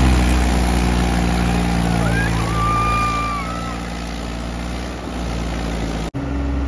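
Mahindra tractor's diesel engine running hard under load as the rear wheels spin in mud, a steady low drone. A thin high sliding tone comes in about two seconds in for a second or so. The sound cuts out briefly just after six seconds, then the engine drone resumes.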